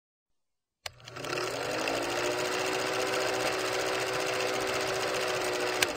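Old film projector sound effect: a steady, rapid mechanical clatter with a faint hum that rises slightly as it spins up, opening about a second in with a sharp click and ending with another click near the end.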